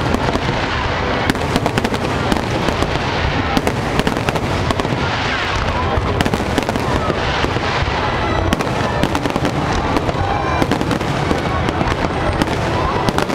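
Fireworks display in a dense, continuous barrage: many sharp bangs and crackles, closely packed and overlapping, with no pause.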